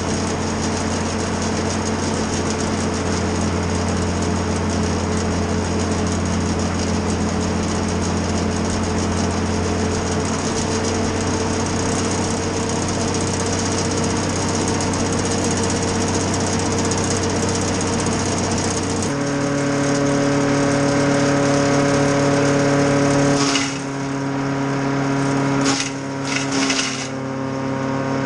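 Wood chipper's engine running steadily. About two-thirds of the way through its note changes abruptly and settles into a different steady drone, with a few short noisy bursts near the end.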